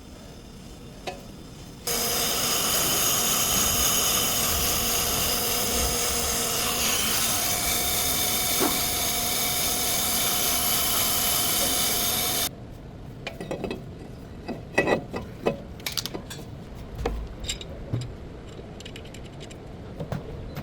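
A power tool runs steadily for about ten seconds, starting and stopping abruptly, followed by scattered clinks and knocks of hand tools on metal.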